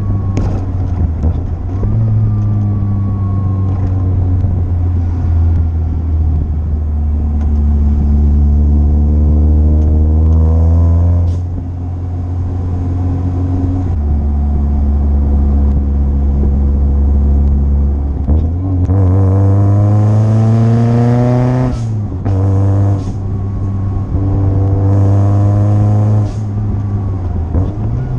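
Supercharged 1.6-litre Mazda MX-5 Miata four-cylinder, with an Eaton M45 blower, heard from inside the open-top cockpit while driven hard. The revs climb steeply several times and drop sharply after each climb, with a steadier, lower-revving stretch in the middle. The strongest pull comes about two-thirds of the way through.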